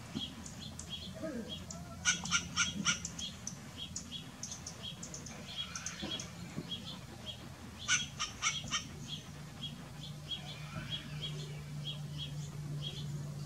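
Western gray squirrel barking: short, sharp calls repeated about three times a second, with two louder, faster runs of barks, about two seconds in and again about eight seconds in.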